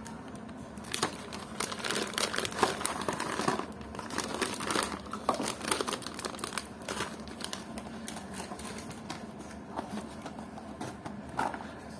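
Plastic bag packaging crinkling and rustling as it is handled and cut open with scissors, with cardboard packaging scraping against it. The crackling is busiest in the first half and thins out later.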